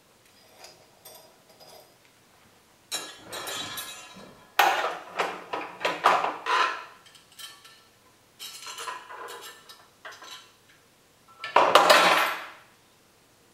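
Irregular clattering and clinking as parts and tools are handled against a walking foot sewing machine and its plastic base, in several bursts with the loudest near the end.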